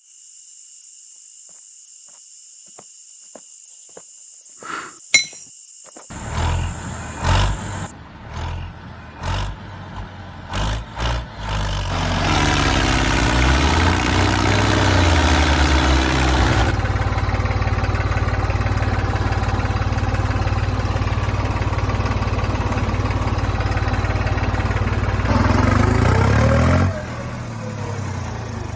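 A few light metal clicks as a tow chain is hooked on, then the motor of a small DIY model tractor starts in short bursts and runs steadily under load while it tows another model tractor out of a trench. The running sound stops abruptly near the end.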